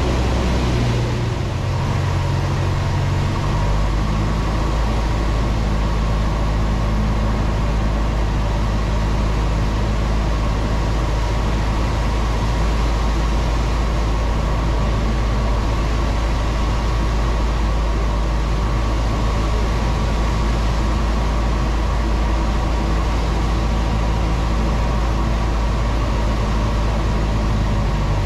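Cessna 162 Skycatcher's four-cylinder Continental O-200 engine and propeller running steadily in flight, heard inside the cockpit. The engine note shifts a second or two in, then holds steady.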